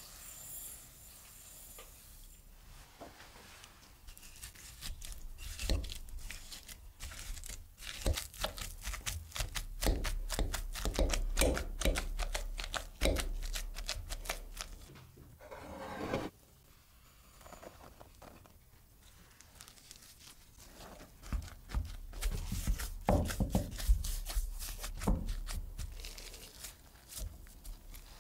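Cooked potato chunks being mashed with a wire potato masher in a glass bowl: rapid, repeated squishing, crunchy strokes in two long spells with a quieter lull near the middle.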